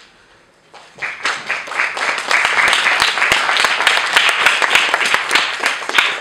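An audience applauding, with the clapping starting about a second in.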